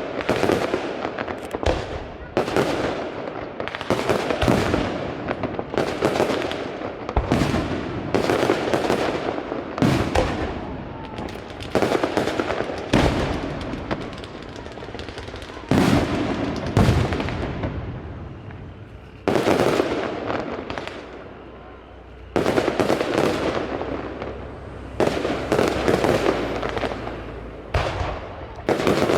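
Aerial firework shells bursting one after another, a sharp bang every second or two, each followed by a fading tail of noise.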